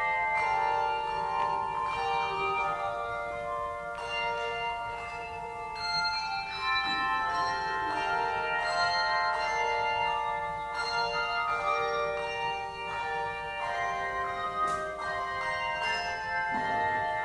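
Bells playing a tune: struck notes that ring on and overlap, several pitches sounding at once.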